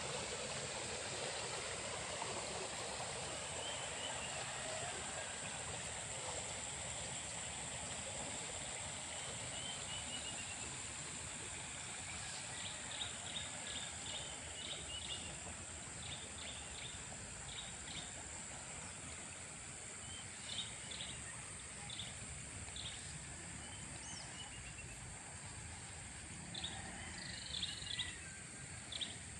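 Water flowing steadily in a small irrigation ditch, a continuous rushing that grows a little fainter over time. Birds chirp in short quick runs through the second half.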